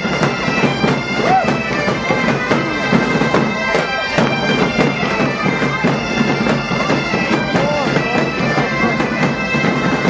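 A large band of gaitas-de-foles (Portuguese/Galician bagpipes) playing a tune together over a steady drone, with bass and snare drums beating along.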